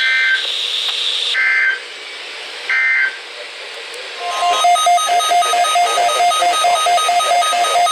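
Three short bursts of weather-radio SAME data chirps, about a second and a half apart: the end-of-message code of a NOAA Weather Radio broadcast. A steady high whine runs under the first burst and stops about a second and a half in. After a lull, from about four seconds in, a loud electronic alarm beeps rapidly, about five times a second.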